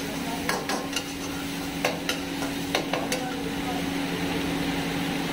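A metal ladle stirs, scrapes and knocks against a steel wok as food is stir-fried, with a steady sizzle underneath. There are several sharp clinks in the first three seconds or so.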